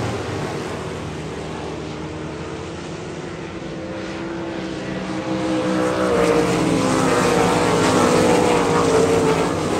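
Several winged sprint cars racing on a dirt oval, their V8 engines running hard at speed. The engine noise grows louder about halfway through and stays loud to the end.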